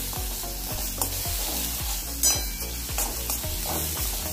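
A metal spoon stirring and scraping fried coriander stuffing around a steel kadhai, with quick repeated scrapes about three a second.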